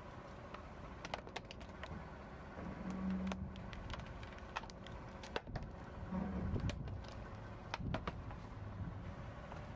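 Plastic case and keys of a Dell laptop creaking, clicking and snapping as a car tyre rolls slowly onto it and presses down, over the car's low engine rumble.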